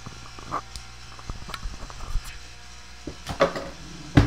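Handling noise: scattered small clicks and a rustle over a low steady hum, with one sharp knock near the end.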